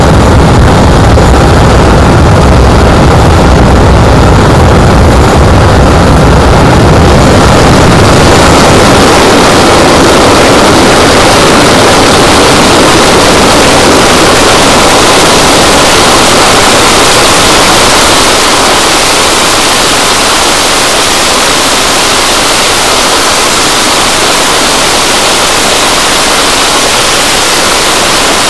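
Twin Rolls-Royce Avon turbojets of an English Electric Lightning F.6 running during a ground engine run: a very loud, continuous roar. About eight seconds in, the deep rumble fades and the sound turns to a hissing rush, dropping slightly in level later on.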